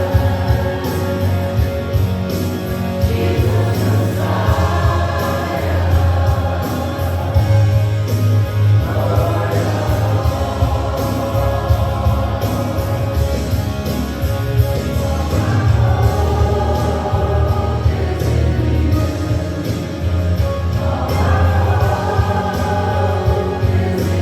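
Gospel worship song sung by a group of voices together, over instrumental accompaniment with a strong, steady bass.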